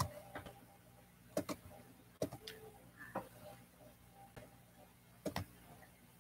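Scattered small clicks and taps, some in quick pairs, over a faint steady low hum.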